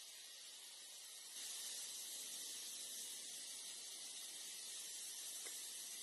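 Steady high-pitched hiss of forest background noise, getting louder about a second and a half in, with no bird calls.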